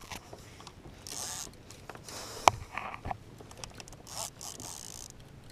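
Fishing reel buzzing in short bursts under the pull of a hooked mahi-mahi, with one sharp click about halfway through.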